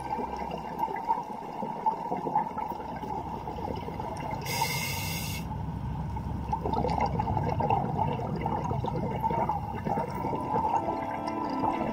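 Underwater sound of scuba regulator breathing: a bubbly gurgle of exhaled air, with a short hiss of an inhale through the regulator about halfway through.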